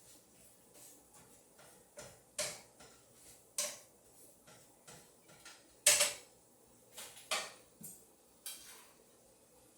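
Kitchen clatter: a run of separate knocks and clinks of pots, pans and utensils being handled, with the loudest knock about six seconds in.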